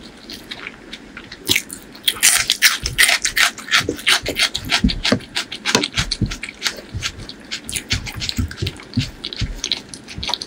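Close-miked chewing and wet mouth sounds of eating chicken liver and gizzard curry with rice, a dense run of small clicks and crackles that thickens about two seconds in, along with fingers squishing and mixing the rice.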